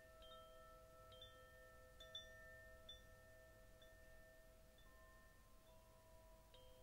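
Faint background music of soft, ringing chime tones: several held notes overlap, with a light high ping about once a second.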